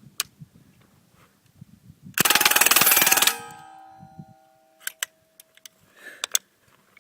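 Suppressed M11/9 with a Fleming .22 LR subcaliber upper and AAC M4-1000 suppressor firing a rapid full-auto burst of about a second at a steel plate. The plate rings with clear tones that fade over the next two seconds, and a few sharp clicks follow.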